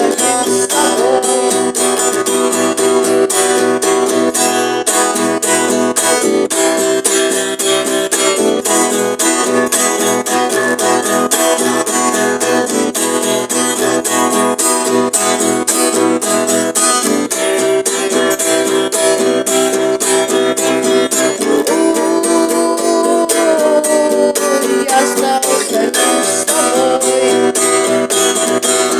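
Instrumental rock: strummed guitar chords and a lead guitar line with bass over a steady drum-machine beat, the lead bending in pitch in the later part.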